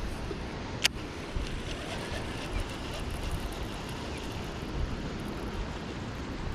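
Storm wind rushing over the microphone, a steady low rumble, with one sharp click about a second in.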